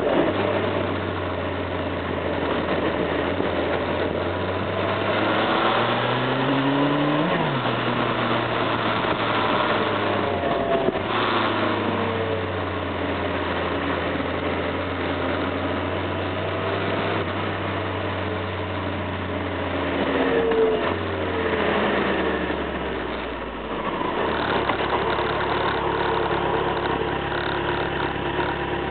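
Motorcycle engine heard on board, rising and falling in pitch with throttle and gear changes, over wind and road noise. Near the end it settles to a lower, steady idle as the bike stops.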